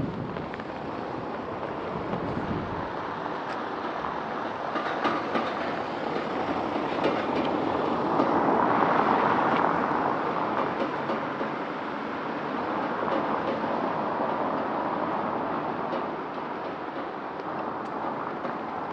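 A train rolling past, its noise swelling to a peak about halfway through and then easing off, with a few short clicks as it goes.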